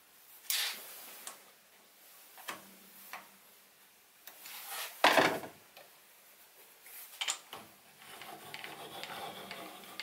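Scattered light clicks and knocks from hand work on a Sieg SC3 mini lathe's saddle, a screwdriver nipping up screws and a hand working the apron lever, with one louder clunk about five seconds in.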